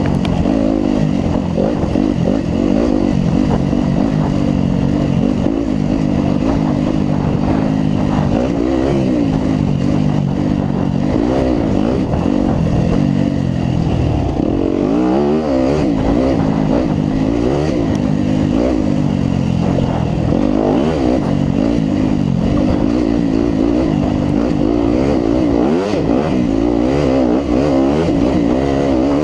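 Yamaha WR250F four-stroke single-cylinder dirt bike engine revving hard under load. Its pitch climbs and drops again and again as the throttle is worked around the track.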